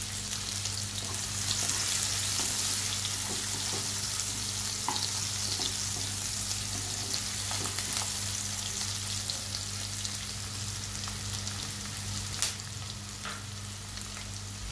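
Chopped onions sizzling steadily in hot oil left over from frying chicken, with a few light clicks of stirring. A steady low hum runs underneath.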